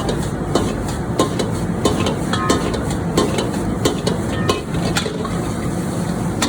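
Vegetable fried rice being stir-fried in a hot pan: a steady sizzle, with the spatula repeatedly clicking and scraping against the pan as the rice is tossed.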